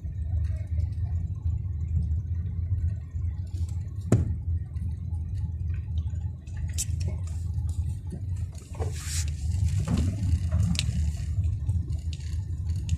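Car engine and road rumble heard from inside the cabin while driving, with one sharp knock about four seconds in and a few short hissing rustles later on.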